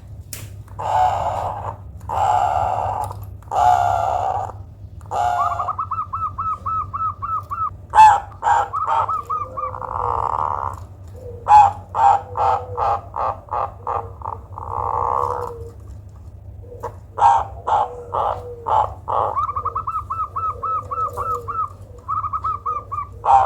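Zebra dove (perkutut) calling in an unusual voice: runs of quick rattling notes alternate with rows of short, sharp single calls and a few longer hoarse notes. This odd call is reputedly well suited as a lure (pancingan) to set other perkutut calling.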